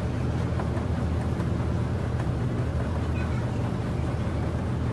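River ferry's engine running with a steady low drone, under a constant rushing noise of water and wind on the open deck.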